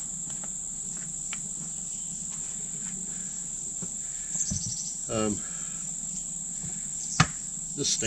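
Insects chirring in a steady, high, even drone. A single sharp knock comes about seven seconds in, as the split lock ring is worked onto the truck wheel's rim.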